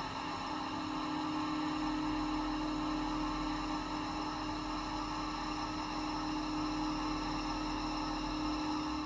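Small electric motor of a model railway running at a steady speed, giving a constant whine with a hum beneath it.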